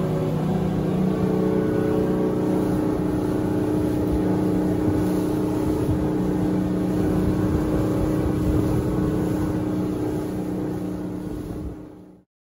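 A motorboat's engine running steadily under way, with water rushing and splashing against the hull. The sound cuts off suddenly near the end.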